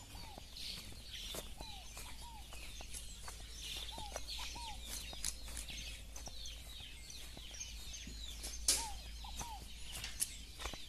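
Chicken clucking: short calls that rise and fall in pitch, in twos and threes, near the start, around the middle and again near the end. Faint high-pitched bird chirps run underneath.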